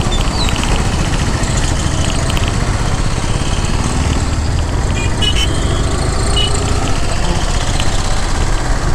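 Ride-along sound from a Yamaha R15 V4 single-cylinder motorcycle pulling away and picking up speed to about 30 km/h in city traffic, with steady wind noise on the camera microphone. A couple of short faint high beeps come about five seconds in.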